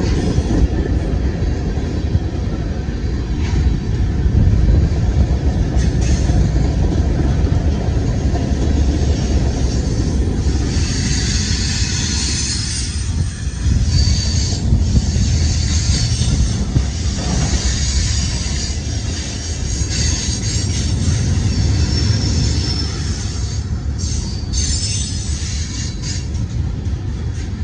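Freight train cars rolling past close by, a steady rumble of steel wheels on the rails. High wheel squeal comes in about ten seconds in and recurs until about twenty-two seconds in.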